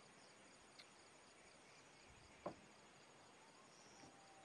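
Faint crickets chirping in a quick, even pulse, with one short sharp click about halfway through.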